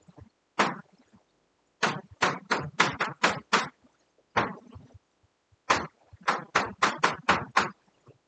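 Chalk writing on a blackboard: short, sharp taps and strokes, in two quick runs of about seven with a few single taps between.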